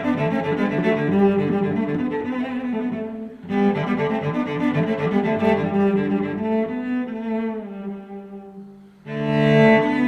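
Instrumental music with sustained, low bowed-string notes. It dips and comes back in sharply about three and a half seconds in, and again about nine seconds in.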